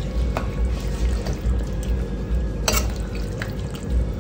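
Slotted steel spoon stirring penne through thick white sauce in a stainless steel pan: wet stirring with a few sharp clinks of the spoon against the pan, the loudest about two-thirds of the way in, over a steady low hum.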